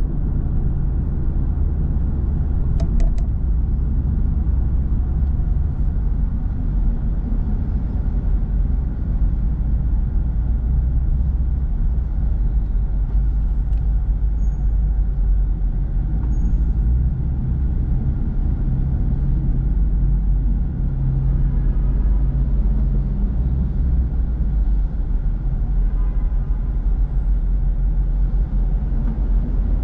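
Road and engine noise inside a moving car's cabin: a steady low rumble from tyres and traffic, with a brief click about three seconds in.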